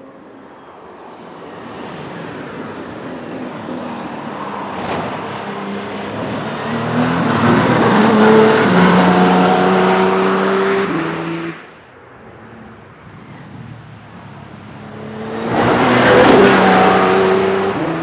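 Audi R18 e-tron quattro LMP1 race car, with its V6 turbodiesel hybrid engine, passing at racing speed twice: the first pass swells to a loud peak and cuts off abruptly a little past halfway, and a second pass rises to a peak near the end.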